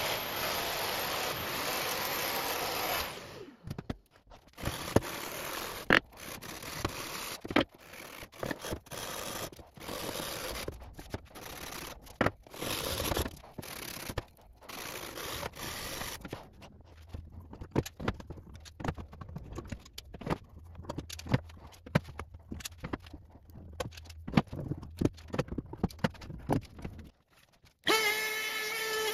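A jigsaw runs for about three seconds and stops. Then come irregular hand-sanding strokes, sandpaper wrapped round a stick scraping along the curved edge of an MDF template. Near the end a router starts and runs at a steady pitch.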